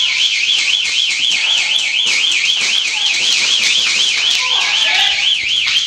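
Electronic alarm siren warbling rapidly up and down in a high pitch, about five times a second, without a break.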